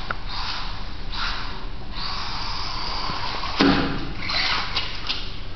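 Brushless-motored Team Losi micro desert truck (1/24-scale RC) whirring in short throttle bursts as it drives on concrete. There is a single sharp knock about three and a half seconds in.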